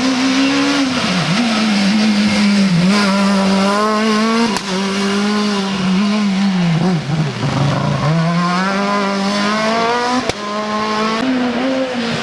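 Four-cylinder rally car engine running hard at high revs. Its note holds high and dips briefly several times as the driver shifts or lifts, with a sharp crack at a gear change about four and a half seconds in and again near ten seconds.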